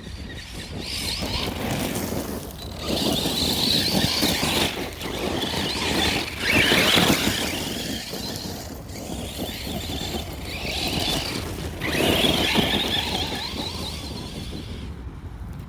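Arrma Granite 4x4 3S BLX 1/10-scale RC car's brushless motor whining in about five throttle bursts, with the tyres churning and spraying gravel.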